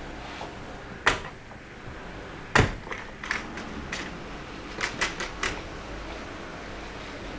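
Irregular clicks and knocks of a window latch and frame being worked by hand: a sharp knock about a second in, another a little later, then a run of quicker, lighter clicks.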